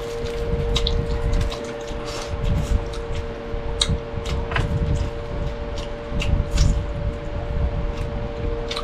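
Close-up eating sounds: chewing and mouth smacks with scattered crisp clicks, from a meal of fried tilapia and stir-fried string beans with tofu and pork, over a steady hum.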